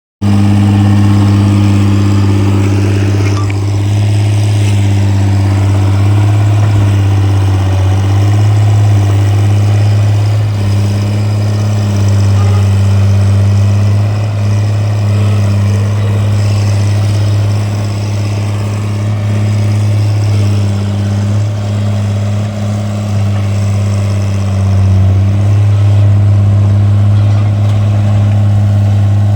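Tata Hitachi 130 excavator's diesel engine running steadily as the machine works, a deep hum that shifts slightly in pitch now and then.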